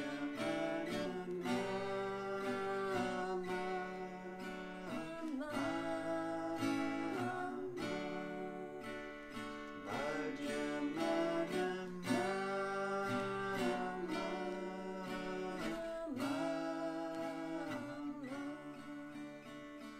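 Kirtan chant: a man singing long held phrases to a strummed acoustic guitar.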